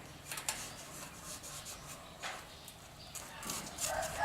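Scattered light knocks and rustles, with a rooster starting to crow near the end.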